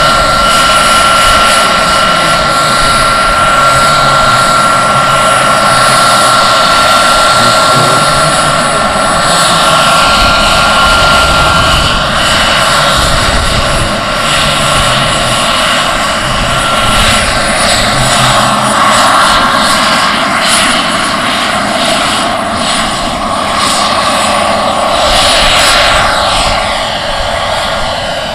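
Giant-scale radio-controlled EC-145 model helicopter's turbine engine whining steadily over its rotor noise, the pitch sweeping up and down in the second half as the model flies past.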